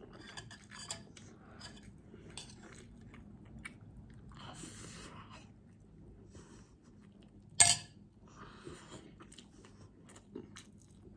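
A person chewing rice and milkfish, with small wet mouth clicks throughout and a breathy noise about four and a half seconds in. A single sharp clink, the loudest sound, comes about seven and a half seconds in.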